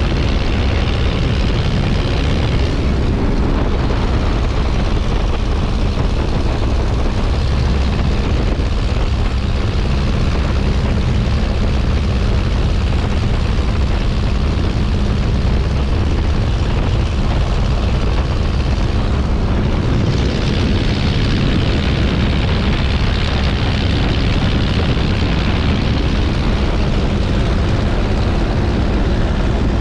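Miles Magister's de Havilland Gipsy Major four-cylinder engine and propeller running loud and steady. The higher hiss drops back about three seconds in and rises again about twenty seconds in.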